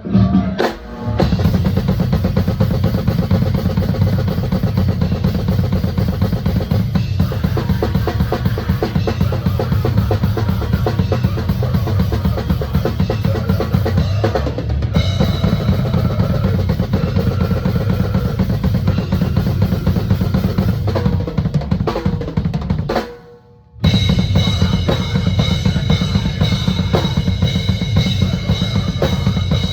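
Drum kit played fast and loud, with bass drum and snare to the fore. It stops for about a second some 23 seconds in, then starts again.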